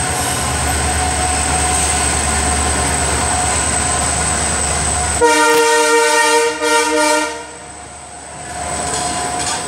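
Passenger train passing close by, its locomotive rumbling past, then a loud two-second train horn blast about five seconds in with a short break in it. The coaches then roll by more quietly.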